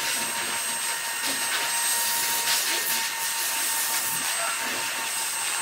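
Steady rushing hiss of an electric blower motor running, with a faint steady whine, and a few soft strokes of a grooming brush through a dog's coat.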